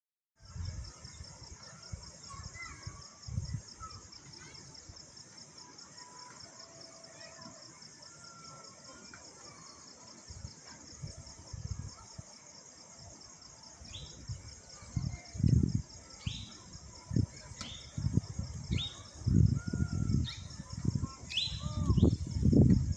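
Outdoor hillside ambience: a steady, high, pulsing insect buzz, with scattered bird calls. From a little past halfway, a bird gives short downward-sliding calls about once a second, and low rumbling thumps on the microphone grow heavier near the end.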